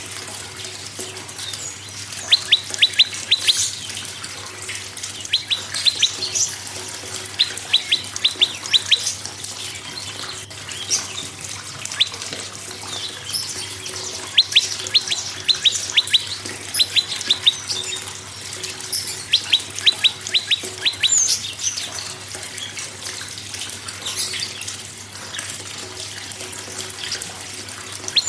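Prenjak (prinia) calling in rapid trains of sharp, high ticks, each train of about six to ten notes in roughly a second, repeated every couple of seconds. Under it runs a steady hiss like running water.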